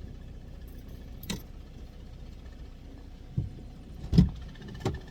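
Steady low rumble of a car heard from inside the cabin, with four sharp knocks or thumps; the loudest comes about four seconds in.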